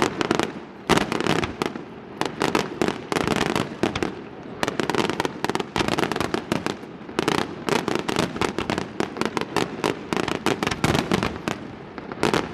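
Aerial fireworks display: dense volleys of sharp bangs and crackles, several every second, easing briefly about four to five seconds in before building again.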